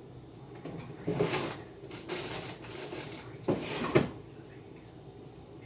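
Rustling and knocking of vegetables being packed into a refrigerator, in three bursts of handling noise with a sharp clack about four seconds in, like a fridge drawer or shelf being knocked shut.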